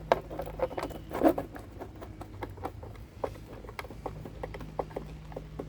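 Irregular clicks, rattles and scrapes of a new self-propelled mower drive wheel and its fastening being handled and fitted back on, over a faint steady low hum.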